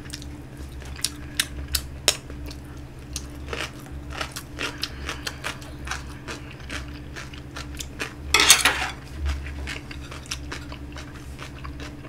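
Close-miked eating of kimchi fried rice: irregular chewing and mouth smacks mixed with metal chopsticks and a spoon clicking and scraping on the plate, with one short louder noise about eight seconds in. A steady low hum sits underneath.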